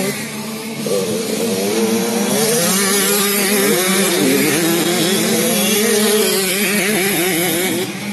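Several 65cc two-stroke youth motocross bikes revving through a corner, their engine notes overlapping and rising and falling with the throttle. There is a steady low hum underneath. It gets louder about a second in and drops back near the end.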